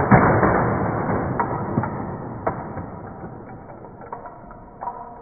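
A loud firework-explosion boom, two sharp bangs followed by a crackling rumble that slowly dies away. It is the effect for the toy firework going off at the end of a Boom City Racers race.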